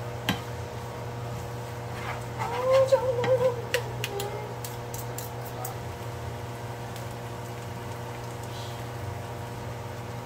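Steady low kitchen hum with a few light clicks and taps of utensils, and a brief wavering, pitched vocal sound about two and a half seconds in.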